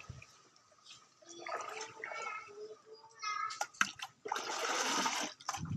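Dye bath liquid splashing and pouring as cloth is lifted out and wrung over a bucket, a loud rush of running liquid starting about four seconds in, after a few sharp knocks and clatters.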